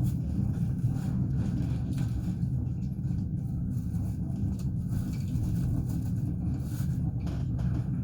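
Passenger train running on the rails: a steady low rumble of wheels and carriage, with a few faint clicks.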